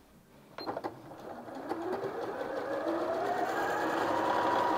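Janome Sewist 740DC computerised sewing machine starting to sew a zigzag stitch. There are a couple of clicks about half a second in, then the motor's whine and needle mechanism rise in pitch as it speeds up and settle into a steady run.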